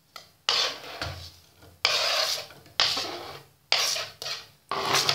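A knife scraping chopped tomato, green chilli and onion off a plastic chopping board into a bowl of beaten eggs, in about five strokes roughly a second apart.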